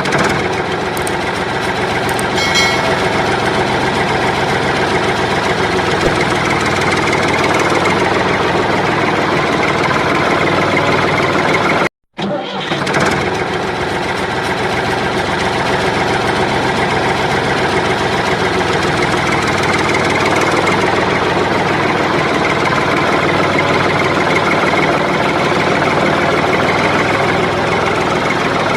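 Battery-powered toy vehicle running, a steady engine-like mechanical noise. It breaks off for a moment about twelve seconds in, then carries on.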